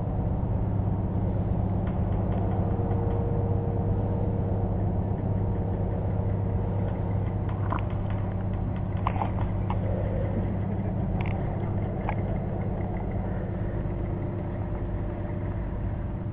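A steady low hum at an even level, with a few faint clicks around the middle.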